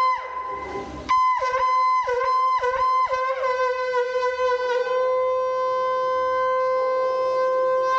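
A conch shell (shankh) blown as the ritual conch call of a Hindu puja. There are several blasts, each starting on a high note and breaking down to a lower one, and then one long, steady low note held for about four seconds.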